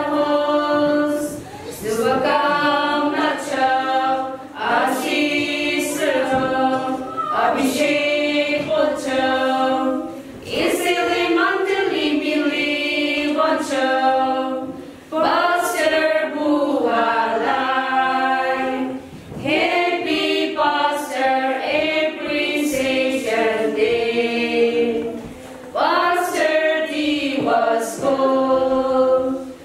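A group of women singing a hymn together in unison, without accompaniment. The phrases are sung with short breath pauses between them, the longer ones about halfway through and again about two-thirds of the way in.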